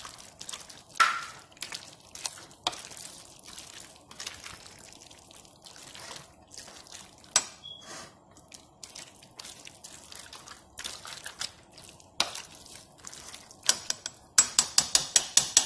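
A plastic spoon stirring spaghetti, chicken and cream sauce in a stainless steel pot: wet squishing with scattered clicks and knocks against the pot, then a quick run of about eight sharp taps near the end.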